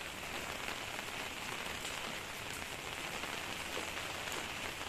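Steady rain falling on a wet concrete rooftop, with a few separate drops ticking now and then.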